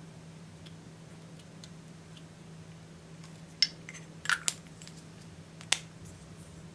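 A few sharp clicks and clinks of plastic lipstick tubes and caps being handled, spread over the second half, over a faint steady hum.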